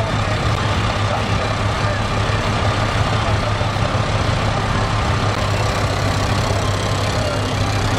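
A grey Ferguson TE20 tractor's engine running steadily at low speed as it drives slowly past, with other vintage tractor engines running behind it: a continuous low hum.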